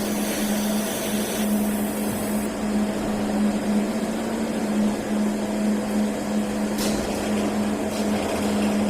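Welding on an 8-inch bellows: a steady hum over a constant hiss, with a single sharp click about seven seconds in.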